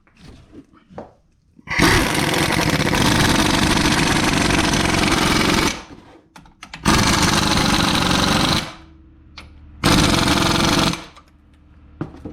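Impact wrench with an 18 mm socket running in the caliper bolts: three loud rattling bursts, the first about 4 s long and the next two shorter.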